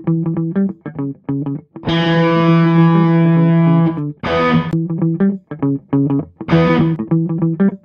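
Background rock music: distorted electric guitar playing short chopped chords, with one long held chord about two seconds in.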